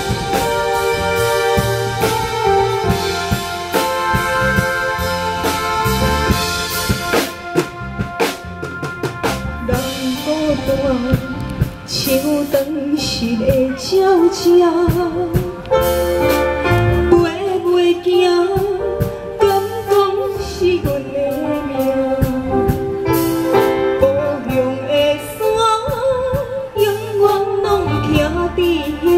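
Backing music with a drum beat, then a woman singing a slow melody over it from about ten seconds in, amplified through a handheld microphone.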